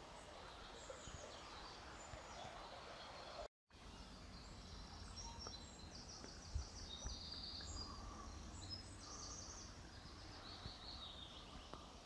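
Forest stream flowing with a steady soft rush, with small songbirds chirping high above it from about five seconds in until near the end. The sound cuts out completely for a moment about three and a half seconds in.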